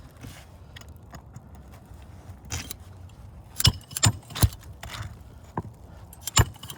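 Sharp knocks and metallic clinks from hand tools working a roof shingle loose and back in place, irregular, the loudest a quick run of three about halfway through and another near the end.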